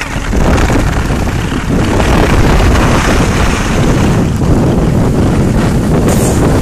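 Wind buffeting the microphone of a camera carried down a ski slope: a loud, steady rushing rumble, heaviest in the low end, that swells about two seconds in.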